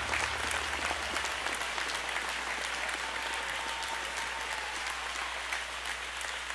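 Crowd applauding: many hands clapping steadily and densely.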